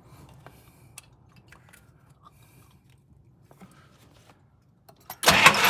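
Faint clicks and handling noises, then about five seconds in the 1959 Buick's nailhead V8 suddenly cranks and fires up, running loudly after a crank-no-start caused by weak spark.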